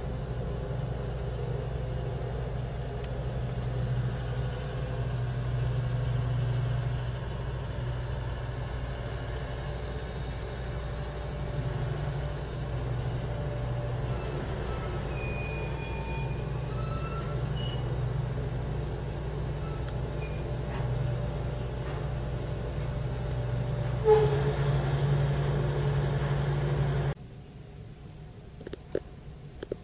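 Dredging crane barge's engine and winches running with a steady low drone as the clamshell grab bucket is hoisted, with faint high squeals and a brief louder squeal about three-quarters of the way through. The sound drops suddenly to a much quieter background near the end.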